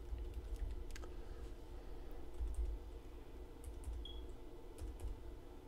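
A few separate computer keyboard keystrokes clicking, sparse and light, over a low steady hum.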